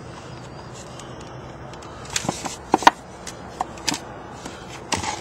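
Light clicks and knocks of a stainless steel electrolyzer plate being handled and repositioned on the cell's end cap: a cluster of short taps about two to three seconds in, another near four seconds and one near the end, over a steady low hiss.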